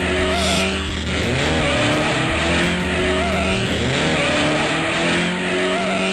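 Race car engine sound effects revving up and down in repeated sweeps, with a tire squeal, over a steady background music track.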